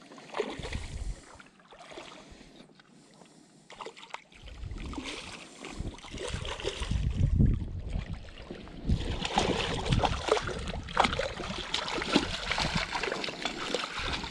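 River water splashing and sloshing close by, uneven, growing louder about nine seconds in, with low rumbles now and then.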